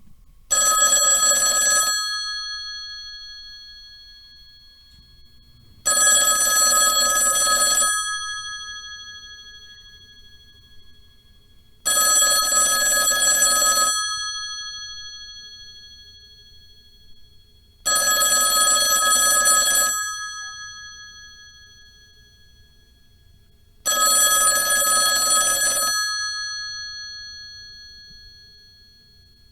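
Telephone ringing: five rings, each about a second and a half long and repeating every six seconds, each fading slowly after it stops.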